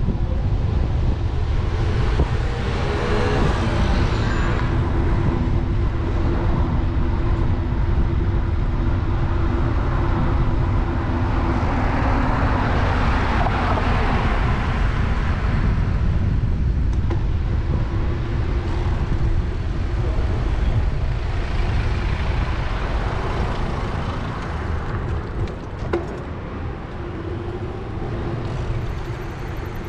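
City road traffic heard from a moving bicycle: cars running close alongside with a steady engine hum, and passing vehicles swelling and fading over a constant low rumble, loudest about halfway through and easing off near the end.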